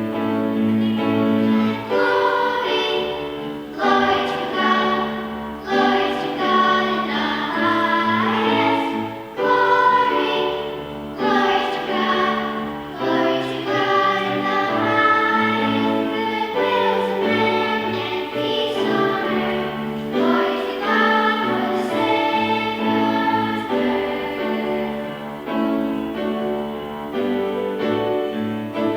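Choir singing a Christmas anthem with instrumental accompaniment, the sustained chords changing every second or two.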